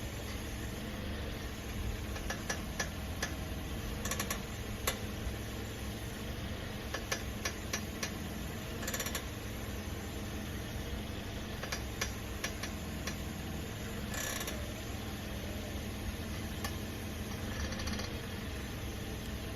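A car's steering being turned while the car stands still, giving scattered clicks and knocks and a few short scraping bursts over the steady hum of the engine idling. This is the abnormal noise that comes with turning the wheel in place.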